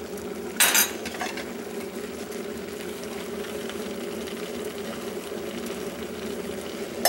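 Water and instant rice boiling in a small stainless-steel saucepan, a steady bubbling, with a short metal clatter about a second in.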